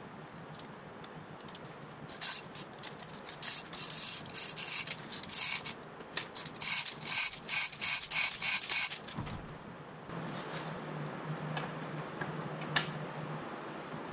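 Manual chain hoist being hauled to lift the transmission off the bell housing: a fast run of rasping chain rattles lasting several seconds, ending in a dull thud.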